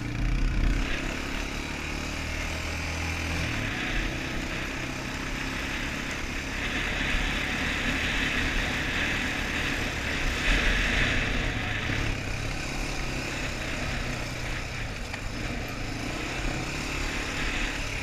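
Quad bike engine running steadily as it is ridden, its pitch shifting with the throttle.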